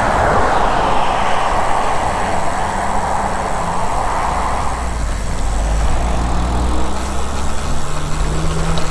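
Road traffic heard from a bicycle: a passing vehicle's tyre noise fades away over the first few seconds, then a low engine rumble builds in the second half.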